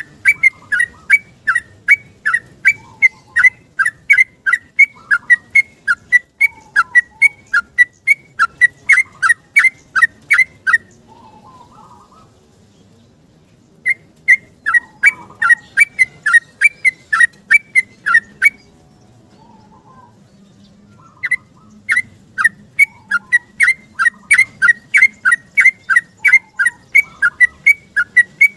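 Yellow-vented bulbul singing a long run of sharp, repeated whistled notes, about three a second. The song breaks off for a few seconds twice, about a third and two thirds of the way through.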